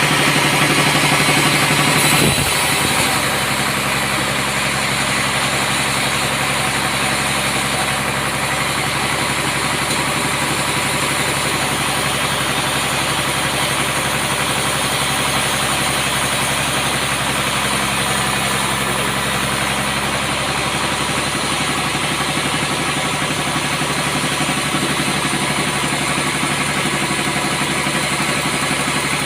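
Sawmill's engine running steadily. A louder noise over it drops away about two seconds in, leaving the engine running on its own.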